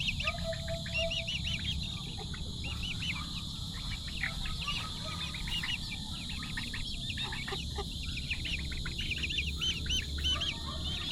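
A group of chicken chicks peeping continuously, many short high chirps overlapping one another.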